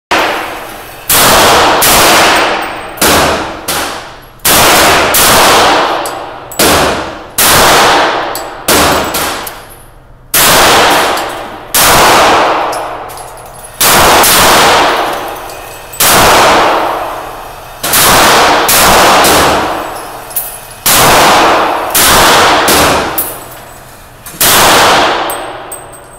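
CZ 75B pistol in .40 S&W firing about twenty single shots, mostly a second or so apart with a few short pauses, each shot ringing out in the echo of an indoor range.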